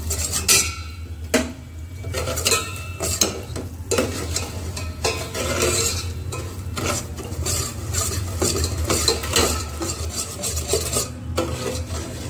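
Metal spoon stirring and scraping around the bottom of a stainless steel pot, with irregular clinks and a light sizzle from sugar caramelizing, over a steady low hum.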